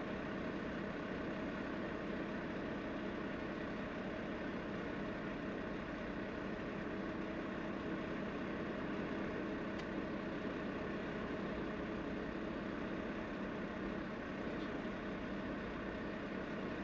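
Semi-truck engine idling, a steady even hum, with one faint click about ten seconds in.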